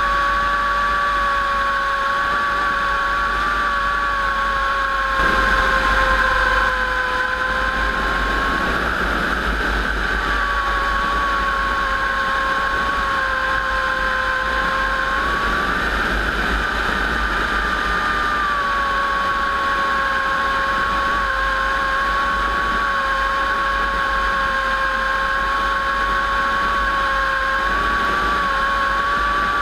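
WWII warbird aircraft engines running steadily, with a whine that wavers slightly in pitch, and a brief louder swell about five seconds in.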